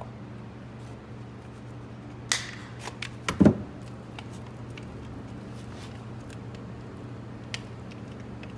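Plastic tool-battery adapter and battery being handled: a few sharp clicks and knocks about two to three and a half seconds in, the loudest a hollow knock, then a single faint click near the end, over a steady low hum.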